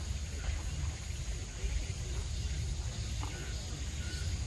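Outdoor gallery ambience: faint murmur of spectators' voices over a steady low rumble, with insects chirping and a brief high chirp a little after three seconds.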